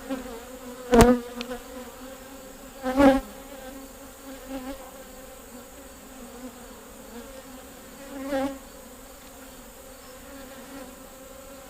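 Honeybees buzzing around an opened hive, a steady hum from the stirred-up colony. It swells loudly three times as bees fly close past: about a second in, about three seconds in, and near the end.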